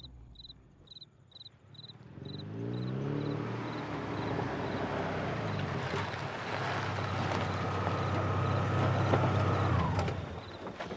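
A car drives up with its engine rising in pitch as it approaches, then runs steadily until it cuts off about ten seconds in. Faint rhythmic chirping is heard in the first two seconds.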